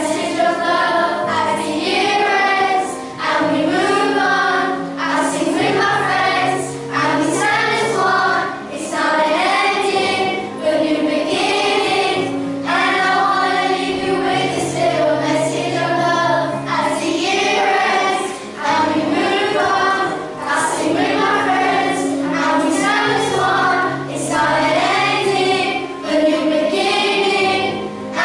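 A choir of primary-school children singing a song together, the sung phrases broken by short pauses every couple of seconds.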